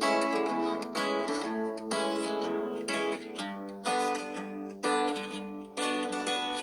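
A Nokia C5-03 ringtone: a guitar tune with a fresh plucked chord struck about once a second, each one ringing on until the next.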